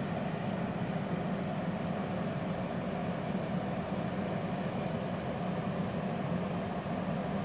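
Steady whir of a Multipro VRD MMA 400 A-MZ inverter welder's cooling fan, the machine switched on and idling with no arc struck.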